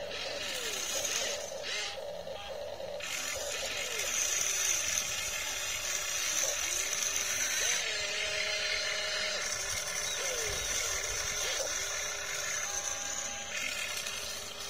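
Whine of an RC excavator's motors as the boom, arm and bucket move while digging and loading, the pitch rising and falling again and again as each motion starts and stops.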